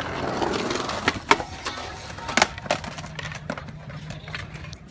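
Skateboard wheels rolling on a concrete skate bowl, then a few sharp clacks of boards striking the concrete, the loudest about a second in.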